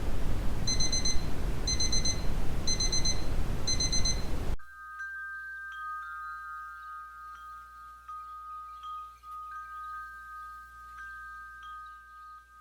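Brown noise hissing while a timer alarm beeps four times, about once a second, marking the end of a pomodoro study session. The noise cuts off suddenly about four and a half seconds in, leaving a faint steady high tone with light ticks.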